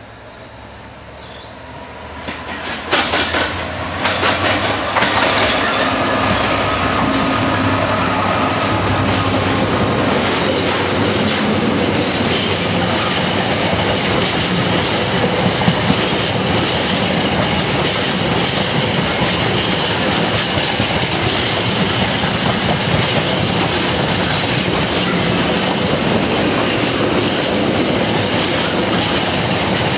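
A Freightliner Class 66 diesel locomotive passes close by, loudest about three seconds in. A long container train follows, its wagons rolling steadily past with wheels clattering over the rail joints and a faint high squeal from the wheels.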